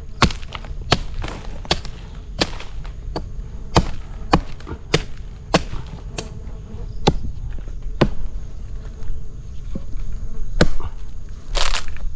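Repeated sharp chopping strikes into the wood of a dead coconut trunk, splitting it open to reach a stingless-bee nest inside, coming about every half second to second with a pause near the end. A faint insect buzz goes on underneath.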